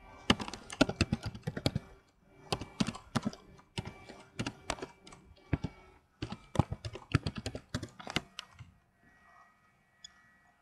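Typing on a computer keyboard: quick runs of keystroke clicks in several bursts, stopping about eight and a half seconds in, after which only a faint steady hum remains.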